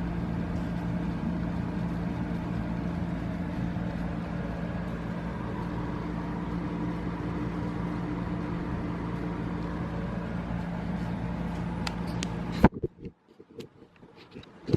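Steady machine hum with a few steady tones over a noisy rumble, cutting off suddenly about twelve and a half seconds in, followed by a few faint clicks.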